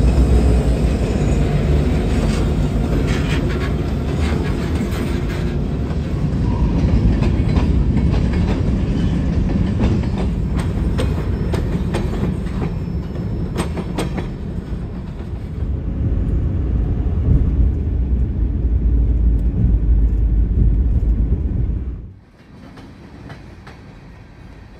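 Freight train rolling past at close range: a heavy low rumble with steel wheels clacking over the rail joints. The sound drops off sharply near the end.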